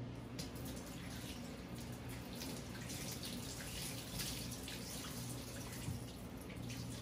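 Kitchen tap running into a stainless-steel sink as a cloth kitchen towel is wetted and squeezed under the stream, with splashing and dripping.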